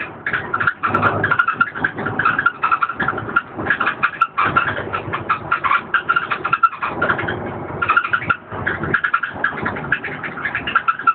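Inside a DAF DB250LF double-decker bus with the engine running, a dense, irregular rattling and clattering from the body and fittings over the engine's low rumble.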